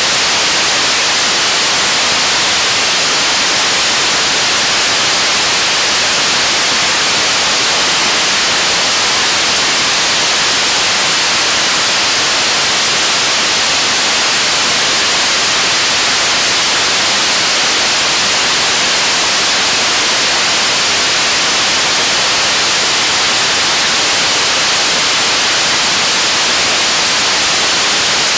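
A 75-tonne-class kerosene and liquid-oxygen rocket engine firing steadily on a test stand, mid-way through a full-duration hot-fire: a loud, even rushing hiss strongest in the upper range, with no change in level.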